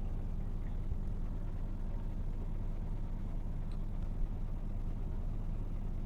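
A steady low engine rumble, with a small click about four seconds in.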